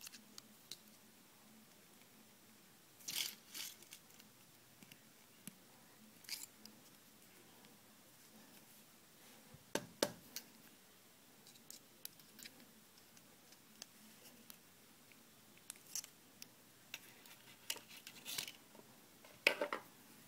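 Scattered faint clicks and scrapes from working a bent steel wire on a wooden dowel with needle-nose pliers and handling the piece, in short clusters with the sharpest ticks about ten seconds in and near the end.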